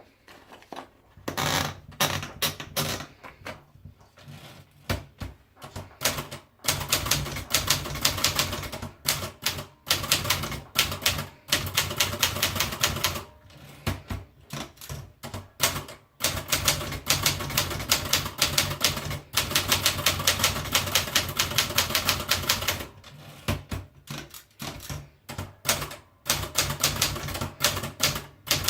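Erika manual typewriter being typed on: keys strike in quick, dense runs of clicks, broken every few seconds by short pauses.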